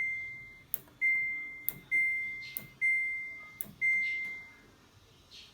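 Samsung front-load washing machine's control panel beeping: five single-pitch beeps about a second apart, each fading out, with faint button clicks between them, as cycle settings are selected for a quick wash.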